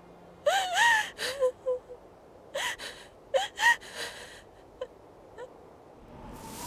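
A woman sobbing hard: high, wavering wails broken by sharp gasping breaths. Near the end a steady hiss begins.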